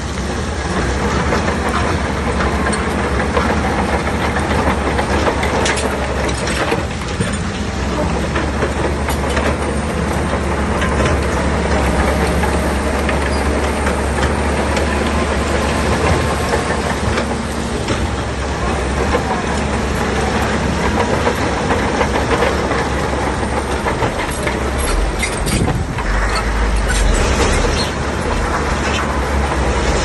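Shantui crawler bulldozer's diesel engine running steadily, with the clatter of its steel tracks.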